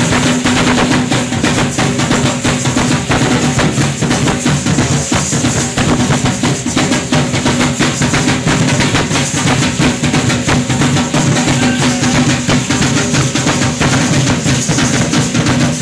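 Steady, fast drumming with the shaking of seed-pod ankle rattles (ayoyotes), the percussion of an Aztec-style danza, with a steady low tone held underneath.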